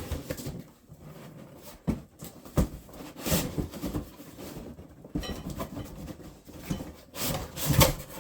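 Cardboard packaging scraping and rustling as the boxed nailer slides out of its outer box, with several irregular knocks.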